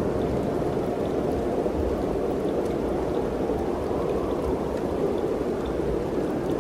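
Steady mountain wind, an even rushing noise with a low rumble underneath.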